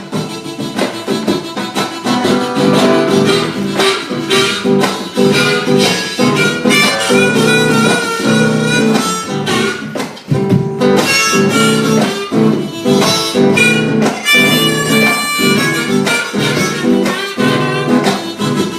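Live country-blues instrumental break: guitar and drums under a lead melody line.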